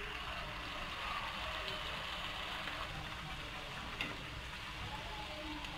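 Raw-banana poori deep-frying in hot mustard oil in a pan: a steady sizzle of bubbling oil, with one light metallic click about four seconds in as a wire slotted spoon touches the pan.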